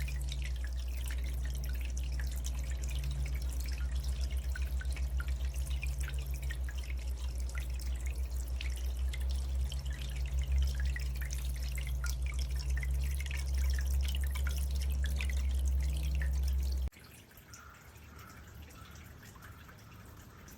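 Alpine DIG370 pagoda water fountain running: water dripping and trickling in many small drops over a steady low hum. Near the end, everything cuts off abruptly.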